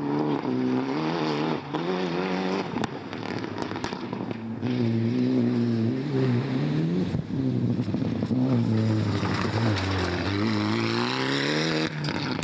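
Rally car engine working hard on a gravel stage, its pitch climbing and dropping again and again through gear changes and lifts, over a hiss of tyres and flung gravel. The sound breaks off sharply a few times.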